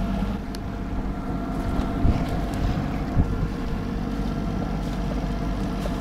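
A sailing yacht's inboard engine running with a steady low hum under way, with wind and water noise on deck. Two short knocks come about two and three seconds in.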